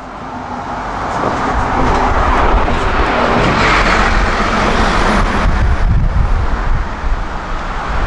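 Solaris Urbino 18 articulated city bus driving past close by: its engine and tyre noise grows as it approaches, is loudest about four seconds in as it passes, then eases slightly as it pulls away. Wind buffets the unshielded microphone with a low rumble throughout.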